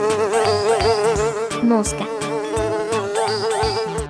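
Housefly buzzing, a steady drone that wavers up and down in pitch, over background children's music with a steady beat.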